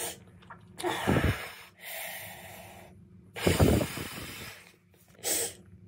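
A man breathing heavily: several long, noisy breaths in and out with short pauses between, the loudest about three and a half seconds in.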